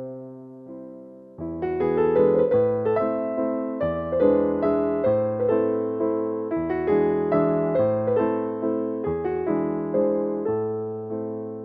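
Background piano music: a few soft notes at first, then fuller, steadier playing from about a second and a half in.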